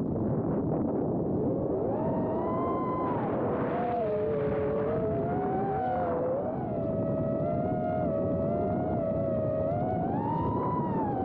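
Brushless motors and tri-blade props of a 4-inch FPV quadcopter whining, their pitch gliding up and down with throttle, over a steady rush of wind on the onboard camera's microphone. The pitch climbs about two seconds in, wavers, rises again near the end and then starts to fall.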